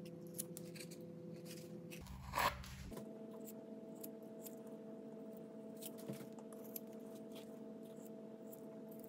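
Faint scraping and clicking of metal-filled epoxy being worked into the holes of a cast iron mill table, with one louder scrape a couple of seconds in, over a steady background hum.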